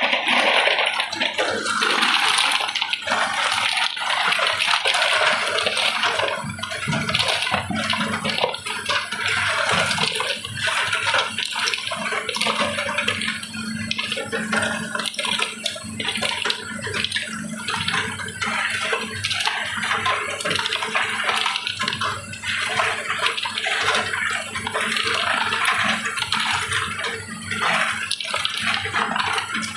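Water running and splashing steadily through a tube-ice machine during a test run, over a steady low machine hum.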